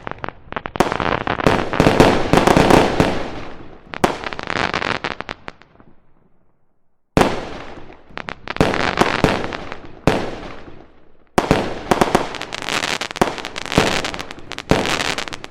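Fireworks: rapid volleys of sharp bangs and crackling. A first volley dies away after about six seconds, there is a short quiet, and then a second volley sets in, thins briefly about two thirds of the way through, and picks up again with more bangs.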